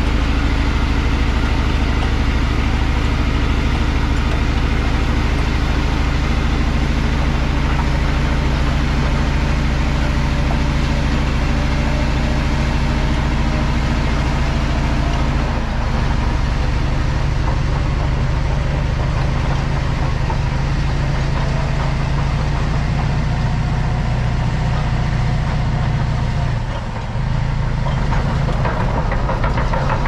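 CAT D11 bulldozer's diesel engine running steadily under load as the dozer pushes dirt with its blade, a deep, continuous drone. The sound shifts slightly about halfway through and dips briefly near the end.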